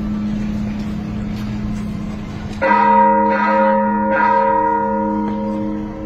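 Church bell rung by hand with a pull rope: its low hum rings on, then it is struck again about two and a half seconds in and once more about a second and a half later, each stroke ringing on with bright overtones.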